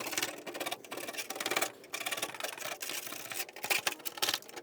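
Metal putty knife scraping and chipping old undercoating off a 1967 Volkswagen steel chassis: an irregular run of rough scrapes and small clicks.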